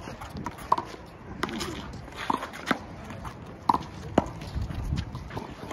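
Handball rally on a concrete wall court: sharp smacks of the small rubber ball off players' hands and the wall, coming about once a second, with sneakers scuffing and giving short squeaks on the concrete.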